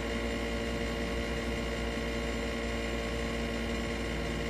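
Steady machine hum from a running household appliance, with several steady tones and a constant low drone that do not change.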